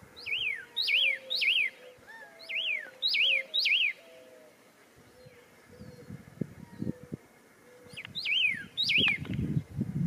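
Pyrrhuloxia singing: clear whistled notes that each slide down in pitch, given in quick runs of two or three with pauses of several seconds between runs. Low muffled thumps and rumbling come in during the second half.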